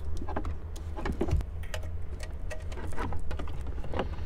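Plastic wiring-harness plugs clicking and wires rattling as connectors are pushed into the back of a car stereo head unit and the unit is handled, a run of small sharp clicks over a steady low hum.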